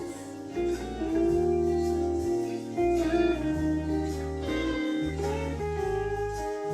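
Background music: a guitar-led instrumental with slide-guitar melody notes over a steady bass line.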